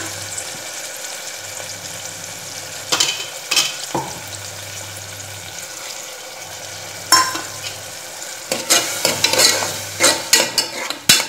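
Onions, tomato and freshly added ginger-garlic paste frying in sesame oil in a metal pressure cooker, with a steady sizzle while the paste is sautéed to cook off its raw smell. A metal ladle knocks against the pot a few times, and from about two-thirds of the way in it scrapes and clatters as the mixture is stirred.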